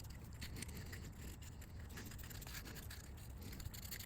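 Faint rubbing and scrubbing of a fingertip around the inside of a snowblower's carburetor float bowl, wiping out the deposits left by old fuel.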